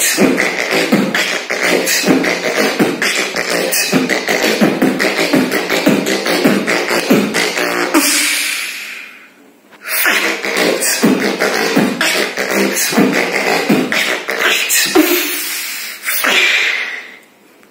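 Vocal beatboxing: a dense, fast rhythm of mouth-made kick, snare and hi-hat sounds. About eight seconds in the strokes give way to a long held hissing sound that fades out, then the rhythm resumes, and another held sound comes near the end.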